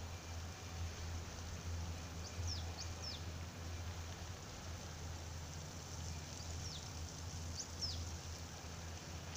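A small bird calling with short, high, quickly falling notes, a cluster of them about two seconds in and another around seven to eight seconds, over a steady low rumble.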